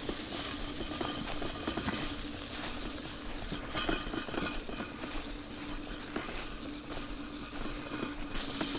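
Mammotion Luba AWD 5000 robotic mower driving across dry grass and leaf litter while mapping a boundary, blades off: a steady electric drive-motor hum with irregular crackling of dry leaves and grass underneath.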